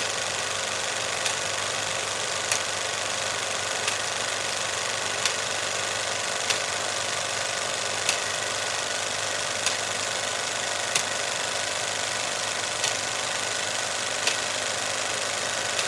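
Cinema film projector running: a steady mechanical whirr and chatter, with a sharper click standing out about every second and a half.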